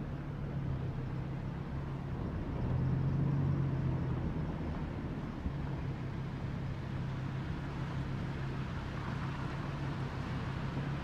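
A steady low motor hum with a rushing noise of a flooded creek over it. It swells briefly about three seconds in.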